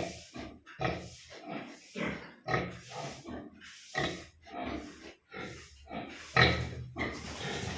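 Pigs grunting in a quick series of short grunts, about two a second, the loudest about six and a half seconds in.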